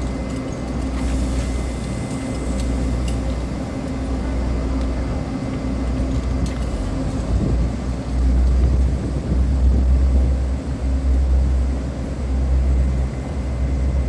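A train standing at the platform gives a loud, steady low rumble that swells louder about halfway through, with faint steady whines above it.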